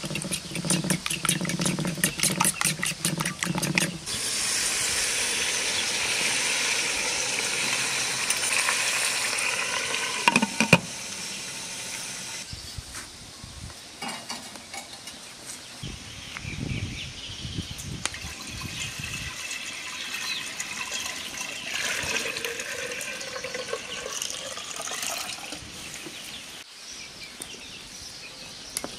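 A fork beating eggs in a porcelain bowl: rapid clinking for the first four seconds. Then a long steady rush of water, a few low knocks, and later water boiling in a metal pot over a wood fire.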